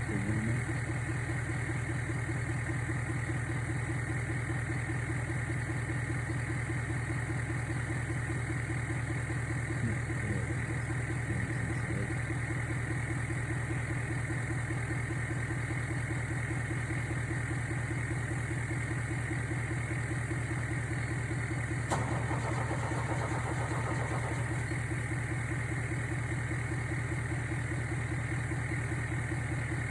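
A motor running steadily with an even, rapid beat, with a single sharp click about two-thirds of the way through.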